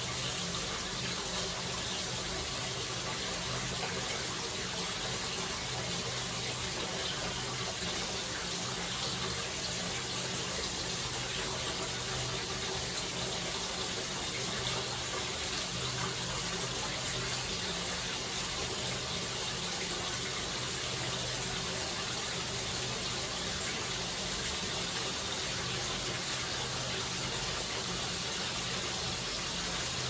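Bathtub filling with water: a steady, unbroken rush of running water into the tub.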